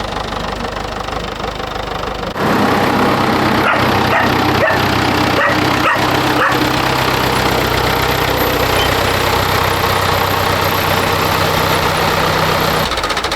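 Tractor engine running steadily, louder from about two seconds in. A dog barks several times over it.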